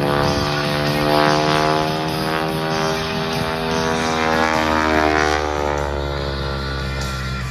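Propeller-driven aerobatic plane's engine droning in flight, its pitch rising and then falling as it works through a maneuver.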